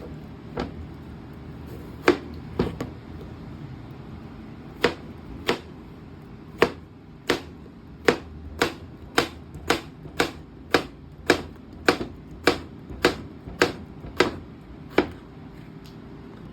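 Knife chopping on a cutting board: sharp separate strokes, spread out at first, then an even run of about two a second that stops about a second and a half before the end.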